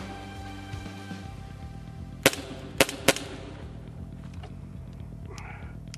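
Airsoft guns firing: three sharp pops a little over two seconds in, the last two close together, followed by a few fainter clicks.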